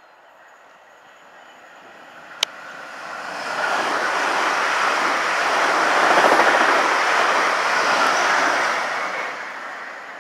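Class 450 Desiro electric multiple unit passing at speed. Its rushing wheel and motor noise builds as it approaches, peaks about six seconds in, and fades as it draws away. A single sharp click sounds about two and a half seconds in.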